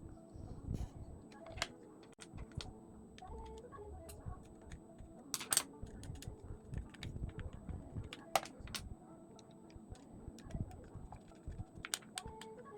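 Irregular light clicks and taps of hands working on a small device, the loudest about five and a half and eight and a half seconds in, over faint background music.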